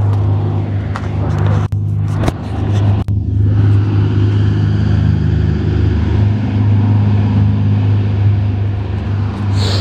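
Steady low rumble of a running engine, with a few sharp knocks from the camera being handled in the first three seconds.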